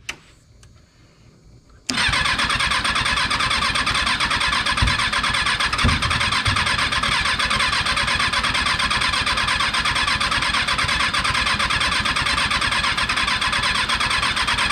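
Kawasaki 636 inline-four motorcycle engine being cranked over by the starter, a fast even churning that starts suddenly after about two seconds and cuts off near the end without the engine catching and running. Two brief low thumps a second apart come partway through, the engine sputtering but not firing.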